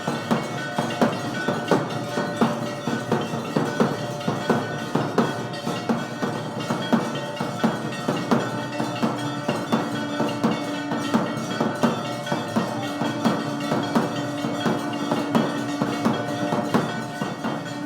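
Temple aarti music: bells and drums struck in a steady beat, about two strikes a second, over held ringing tones.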